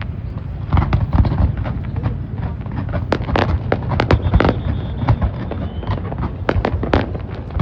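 Fireworks going off: a quick, irregular run of sharp bangs and crackling bursts, starting less than a second in.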